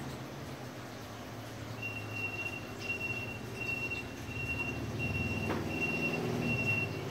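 A regular series of short, high electronic beeps at one pitch, about three every two seconds, starting about two seconds in, over a low steady hum.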